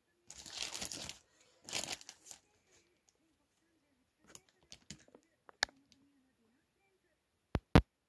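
Packaging crinkling twice in quick succession as a parcel is unwrapped, followed by scattered light taps and a few sharp clicks, the loudest two close together near the end.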